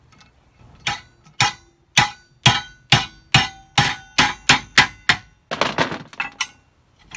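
Hammer blows on a metal part being bent into shape: about eleven steady strikes, two or three a second, each with a slight metallic ring, then a few quicker, lighter taps near the end.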